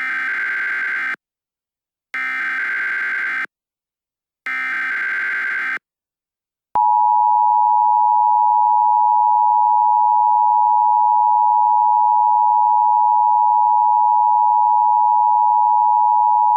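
Emergency Alert System tones: three short bursts of SAME header data, each a buzzy electronic chirr about a second long, spaced about a second apart, then the EAS two-tone attention signal held steady for about ten seconds, marking the start of an emergency alert.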